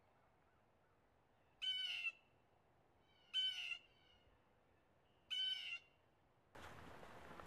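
Crow cawing three times, single harsh calls about a second and a half apart. Near the end a steady rushing noise comes in.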